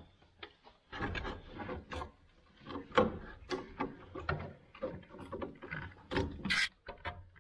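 Hand tools cutting and prying at a stuck part on a table saw motor: irregular scraping, snipping and clicking, with a sharp click about three seconds in.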